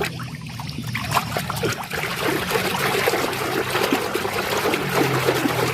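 Water trickling and splashing as a muddy toy vehicle is rinsed clean, over a faint low steady hum.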